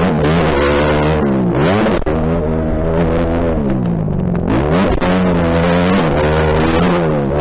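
Motocross dirt bike engine revving hard under load, its pitch dipping and climbing again a few times as the rider works the throttle.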